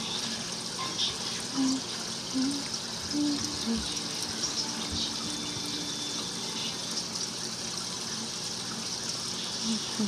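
Aquarium aeration bubbling and fizzing steadily as fine air bubbles stream up through the tank water. A few short low hums come in the first few seconds and again near the end.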